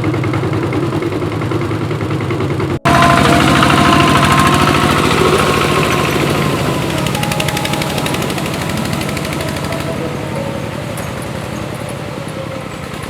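A small engine running steadily, its sound broken by a sudden cut about three seconds in and picking up again just after.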